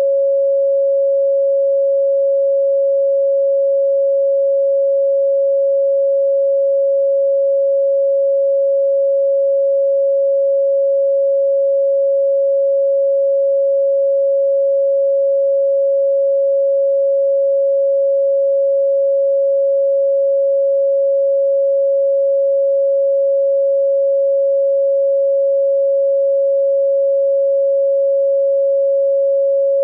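A steady electronic sine tone at about 552 Hz, unbroken and unchanging in pitch and loudness, with a much fainter high tone near 4 kHz.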